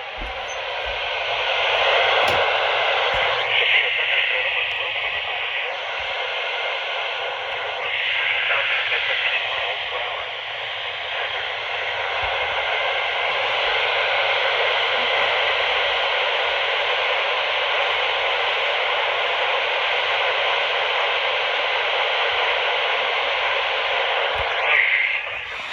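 Radio static: a steady hiss of noise over a weak radio signal, heard through a receiver's narrow audio band, swelling and fading slightly a few times.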